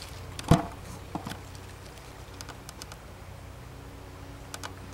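A few sharp clicks and snaps: one loud one about half a second in, a couple of smaller ones a moment later, and a pair near the end, over a faint steady hum.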